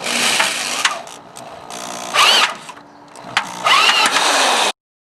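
Corded Craftsman 3/8-inch variable-speed drill driving a Lomvum rivet attachment, run in three short bursts, its motor pitch rising and falling as the trigger is squeezed and let off.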